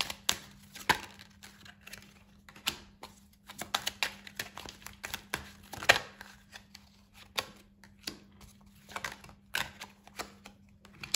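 A deck of oracle cards being shuffled by hand: an irregular run of quick card snaps and flutters, with a few sharper slaps scattered through.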